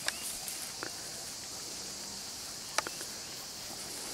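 Steady high-pitched chorus of insects, with three short sharp clicks: one right at the start, one just under a second in, and the loudest near three seconds in.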